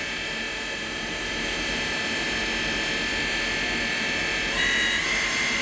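Live tool spindle of a 2016 Samsung SL2500BY CNC lathe spinning at about 2500 RPM under light load, a steady mechanical hum with a high whine. About four and a half seconds in, the whine steps up and grows a little louder.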